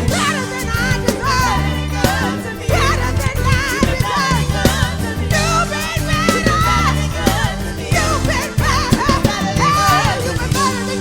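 Live gospel worship music: a band with bass and drums keeps a steady beat, with a wavering melodic line above it.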